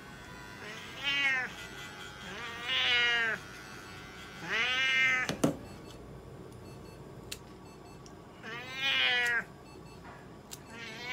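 Domestic cat meowing repeatedly while held for claw trimming: four drawn-out meows that rise and fall in pitch, and a fifth beginning near the end. A sharp click about five and a half seconds in.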